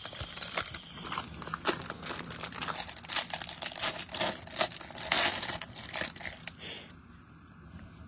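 Foil trading-card pack wrapper crinkling as it is torn open and handled: a rapid, irregular run of crackles that dies down about seven seconds in.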